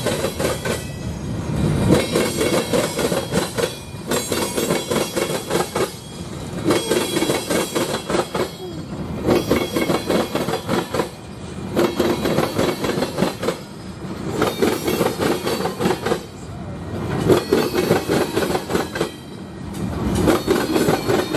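Loaded freight train of covered hoppers and tank cars rolling past. Its steel wheels clatter over the crossing tracks in rhythmic rounds of clacks every two to three seconds as each car's wheel sets pass.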